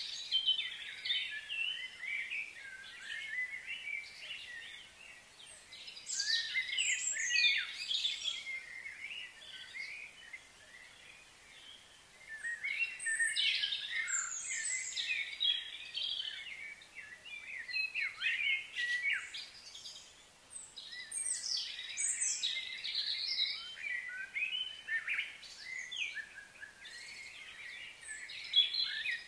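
Many birds chirping and singing at once: quick high calls overlapping in dense clusters, with brief quieter lulls between them.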